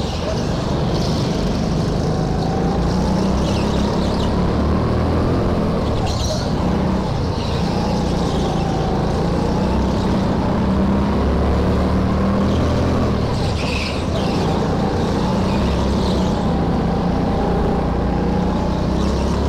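Go-kart running at racing pace, heard onboard, its motor note rising and falling through the corners.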